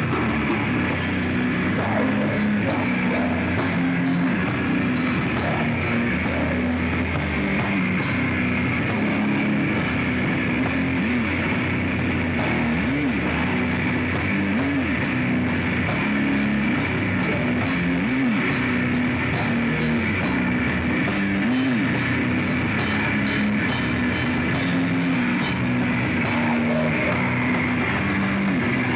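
Metal band playing live: heavily distorted guitars and bass grind through a riff over fast, dense drumming at a steady high volume. A few bent notes arch up and down in the middle.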